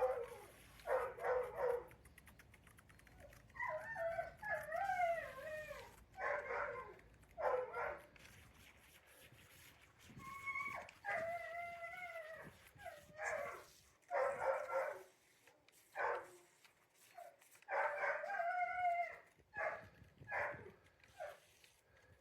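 A dog whining and howling in a string of short cries with pauses between, some bending up and down in pitch.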